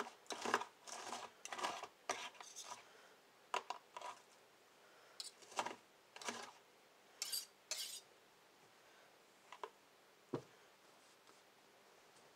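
Kitchen knife and fork clicking and scraping against a plastic tub as salad is chopped. A quick run of short clicks and scrapes over the first eight seconds, then a few scattered knocks, with a single dull thump about ten seconds in.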